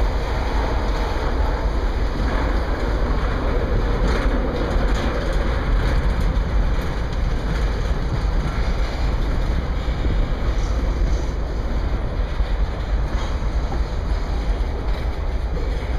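Freight train of tank cars rolling past: a steady rumble of steel wheels on rail, with a few faint clicks now and then.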